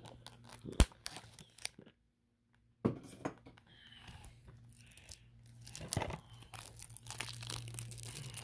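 Plastic shrink-wrap being torn and crinkled off a DVD case: irregular crackles and sharp clicks that grow busier in the second half. There is a moment of dead silence about two seconds in.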